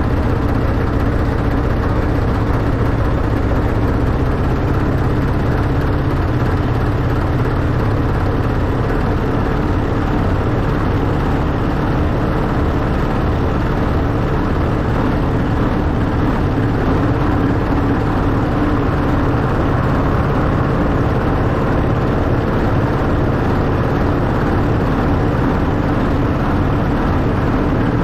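Miniature-railway Class 91 replica locomotive running along the track, a steady rumble of wheels and running gear that holds constant.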